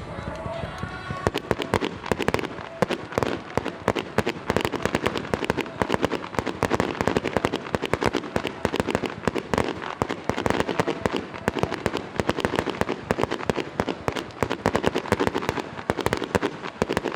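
Fireworks barrage: a dense, continuous run of sharp bangs and crackles, many reports a second, building up about a second in.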